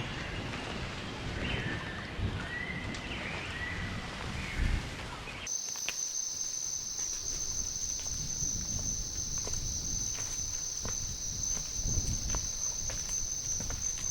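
Tropical forest ambience. At first a low rumbling wash carries a few bird calls. After an abrupt change about five seconds in, a steady high insect drone, cicadas or crickets, continues with scattered clicks and low thuds.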